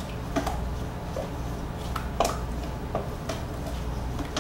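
Spoons stirring a thick corn-syrup mixture in a stainless steel mixing bowl, with irregular light clinks and scrapes of metal against metal.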